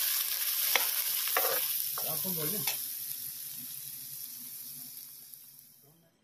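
Chopped onions sizzling in hot oil in a steel kadhai. A ladle scrapes and stirs the pan several times in the first three seconds, and the sizzle fades away near the end.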